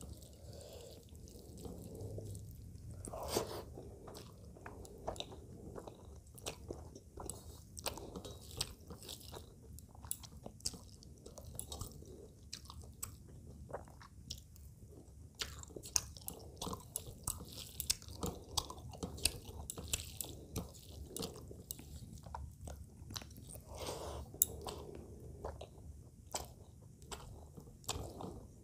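Close-miked chewing and mouth sounds of a person eating rice with fish curry by hand, with many short wet clicks and smacks.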